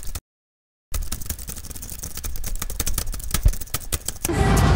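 Rapid, irregular clicking that breaks off to dead silence for under a second just after the start, then resumes; near the end the clicking gives way to steady outdoor street noise.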